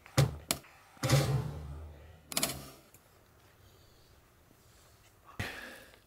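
Camera gear and camera bag being handled: a few knocks and thuds in the first two and a half seconds, one longer with a dull low thump, then another knock near the end.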